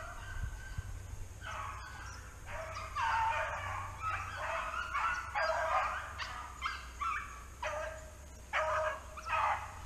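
A pack of rabbit dogs baying in repeated, overlapping calls as they run a rabbit's trail. The calls start about a second and a half in and keep on thickly to the end.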